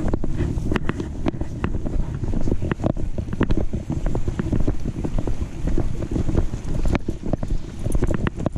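Wind and rubbing noise on a GoPro microphone clipped to a backpack chest strap, jostled with every walking step, with irregular clicks and knocks from the jolting camera and footsteps.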